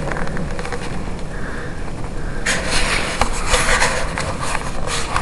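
Footsteps crunching through deep snow, with a louder run of crunching and scraping from about halfway in, over a steady low rumble on the microphone.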